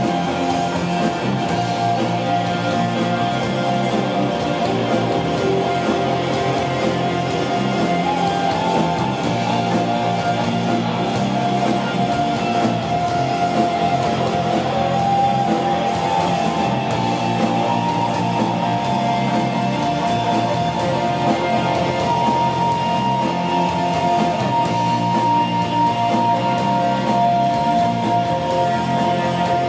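Live rock band playing at a steady level, electric guitars in a dense wall of sound, with long high notes held over it.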